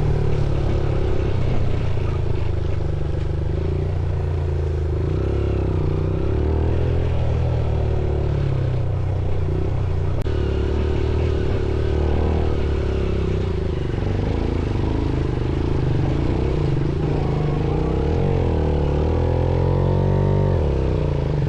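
Motorcycle engine running under varying throttle on an off-road trail, its revs rising and falling. The sound drops away suddenly at the very end.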